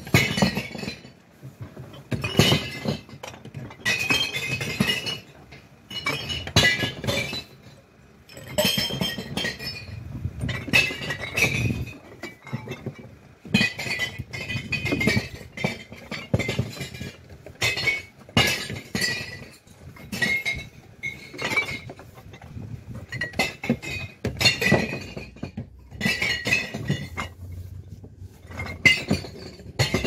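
Glass bottles dropped one after another into a bottle bank, each clinking onto the glass already inside the container, a new impact every second or two.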